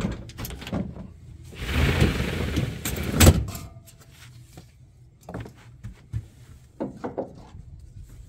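A roll-up vinyl tonneau cover on a pickup bed being handled: about a second of sliding, scraping noise, a sharp knock about three seconds in, then scattered light clicks and taps.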